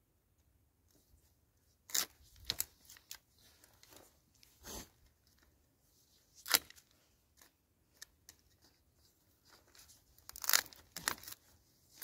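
Long-handled loppers snipping off the protruding ends of willow rods: a series of sharp crunching snaps at irregular intervals, the loudest about halfway through, with a quick run of cuts near the end.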